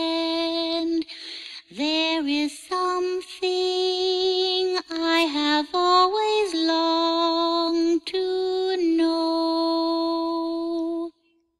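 A single woman's voice in a Muppet character voice sings a slow melody in long, held notes that step up and down in pitch, then stops suddenly near the end.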